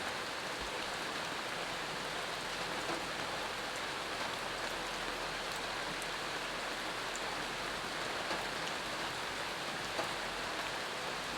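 Steady rain falling, an even hiss with a few louder individual drops here and there.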